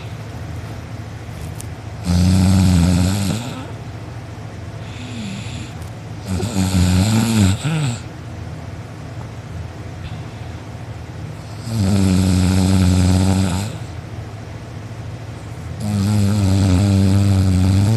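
A person snoring loudly in deep sleep. Four long snores come about four to five seconds apart, each lasting one and a half to two seconds, with quieter breathing between them. The last snore is still going at the end.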